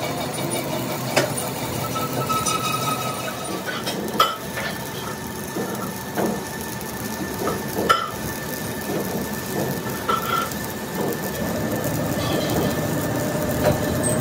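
Stick (shielded metal arc) welding on a steel wheel rim: the electrode's arc crackling steadily while a centre disc is welded in. A few sharp knocks stand out, about a second in, near four seconds and near eight seconds.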